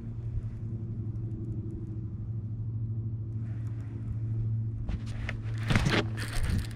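A steady, low motor hum. Near the end come a few louder rustles and knocks of handling.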